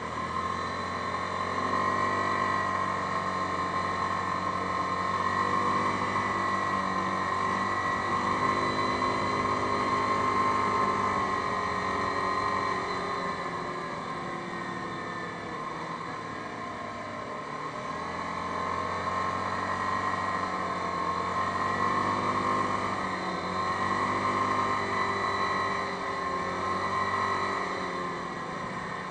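Yamaha Grizzly 550 ATV's single-cylinder engine running on the road, its pitch rising and falling as the throttle opens and closes, with a steady high whine over it. It eases off about halfway through, then picks up again.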